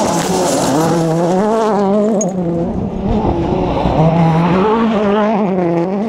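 Rally car engine at full attack on a gravel stage. The engine note climbs and drops repeatedly as the driver shifts gears and lifts, over a hiss of tyres and gravel.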